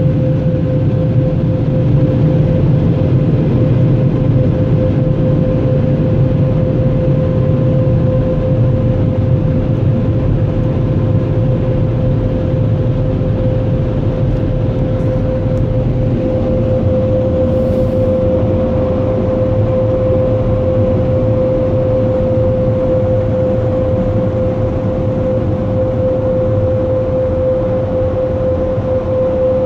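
Car wash air dryer blowers running: a steady rush of air with a constant whining tone from the fan, heard from inside the vehicle's cabin.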